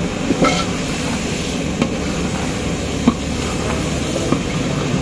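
Long metal ladle stirring tomatoes through hot oil in a large aluminium cooking pot, with a few sharp knocks of the ladle on the pot a little over a second apart. Under it runs a steady noise of frying and the gas burner.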